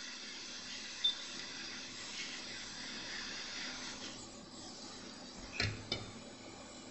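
Steady hiss of bench background noise, with a light click about a second in and two small clicks close together near the end.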